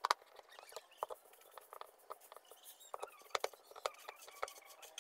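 Faint, irregular small clicks, taps and scratches of hands working against the plastic underside of a washing machine tub while the gearbox is fastened in place.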